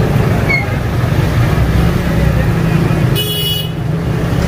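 Street traffic: a steady low engine rumble, with a brief high vehicle-horn toot about three seconds in.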